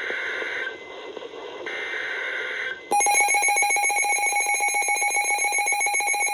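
Emergency Alert System tones: two buzzy digital header bursts, each about a second long with a second's pause between them, mark the start of a new alert. About three seconds in, the EAS attention signal begins, a loud, steady electronic alarm tone.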